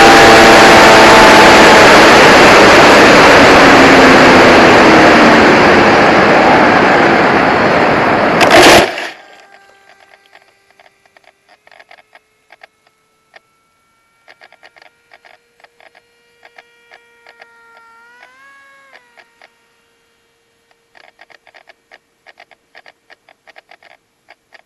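Blade Theory Type W FPV quadcopter's motors and propellers running loud under a heavy rush of wind noise, with faint sliding motor tones. About eight and a half seconds in there is a sharp knock and the sound cuts off abruptly, leaving only faint scattered clicks and a faint steady tone.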